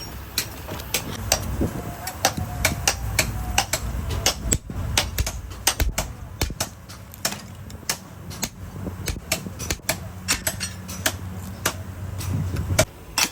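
Irregular sharp metal knocks and clanks, several a second, over a low rumble that stops shortly before the end.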